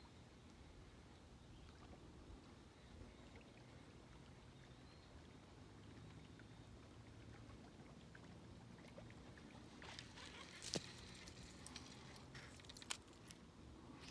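Near silence: faint outdoor pond-side ambience with a low hum. About ten seconds in, a scatter of soft clicks and ticks begins, the two sharpest a couple of seconds apart.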